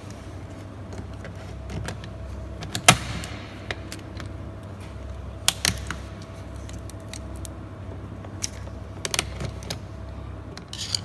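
Scattered metallic clinks and knocks of hand tools and car parts being handled during a transmission install, the loudest about three seconds in and others around five and a half and nine seconds, over a steady low hum.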